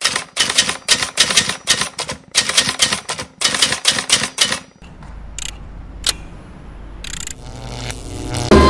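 Typewriter keystroke sound effect, rapid clacking keys in quick clusters for about five seconds. It gives way to a low rumble with a couple of sharp clicks and a short hiss that swells near the end.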